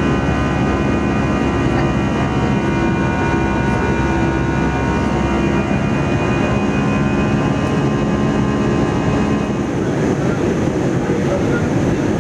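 Airbus A320 jet engines running loud, heard from inside the passenger cabin: a steady roar with several held whining tones that fade away about ten seconds in.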